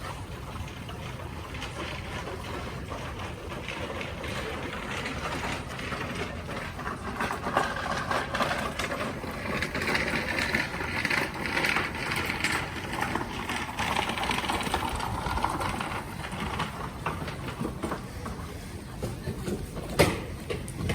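Street ambience on a walk through snow: footsteps and traffic, with a vehicle passing in the middle and a sharp click near the end.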